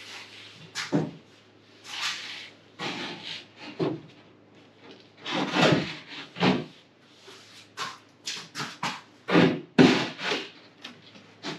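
Wooden galley flat panel scraping and knocking against the camper's wooden bulkhead as it is worked into a tight fit, in an irregular series of rubs and bumps that are loudest near the end.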